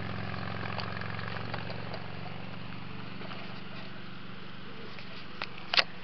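A small motor humming steadily and slowly fading, with two sharp clicks near the end, the second the louder.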